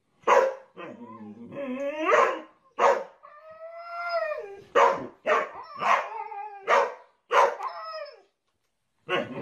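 A boxer and a husky vocalising back and forth: the boxer gives short, sharp barks and the husky answers with long howls that bend up and down in pitch, one held for over a second midway. The calls come one after another with brief gaps, stop for about a second, and start again near the end.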